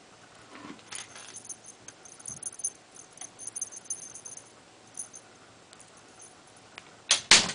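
Light, high jingling ticks as a cat bats at a wand teaser toy. Near the end comes a brief, loud rustling burst.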